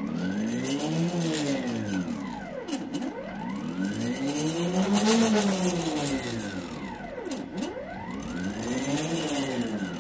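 Homemade pen plotter's motors whining as the pen carriage traces an outline. The pitch rises and falls in a series of arcs as each move speeds up and slows down.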